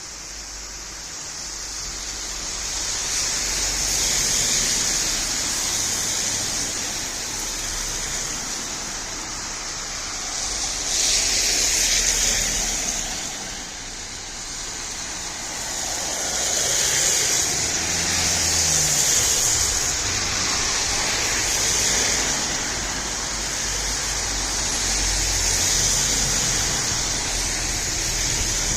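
Road traffic: vehicles passing one after another, their tyre noise swelling and fading about five times, with an engine's pitch dropping as one passes about two-thirds of the way through. The sound fades in over the first few seconds.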